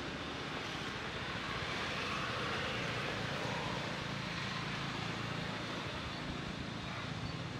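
Steady low drone of a distant engine, swelling slightly a few seconds in and easing off again.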